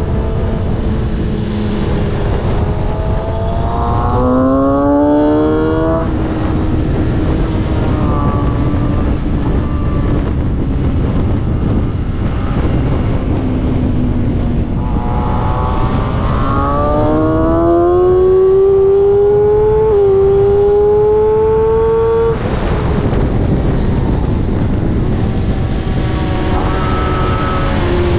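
Sport motorcycle engine pulling hard on a race track, its note climbing through the revs and dropping at each gear change, with a long rise about halfway through and a shorter one near the end. A heavy rush of wind noise runs underneath.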